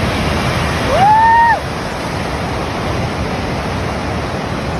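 Ocean surf breaking and washing up a sand beach: a steady rushing wash. About a second in, a short high call rises, holds for about half a second and drops away.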